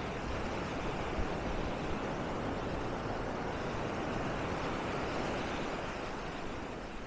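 Surf washing onto a sandy beach: a steady rushing hiss that swells in the middle and eases off near the end.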